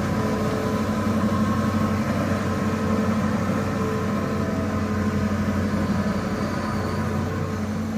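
Heavy diesel engine of earthmoving machinery running steadily, a continuous low hum with fainter higher whines that come and go.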